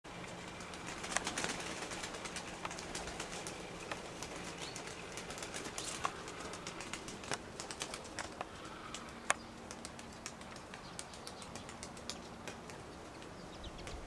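Wing claps of Russian tumbler pigeons flipping in flight: sharp, irregular clicks, sometimes in quick runs and loudest about a second in, over a faint steady hum.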